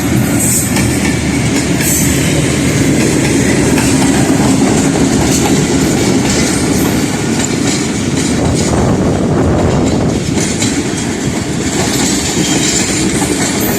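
Passenger train rolling past at a platform, a steady loud rumble with wheels clattering over the rail joints.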